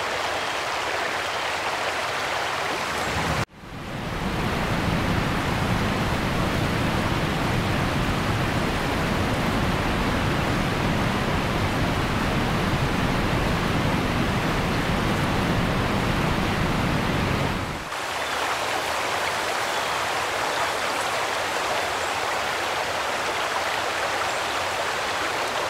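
Heavy rain pouring down, a dense steady hiss. After an abrupt cut about three seconds in, a deeper rumble joins the downpour for about fourteen seconds, then the lighter hiss returns.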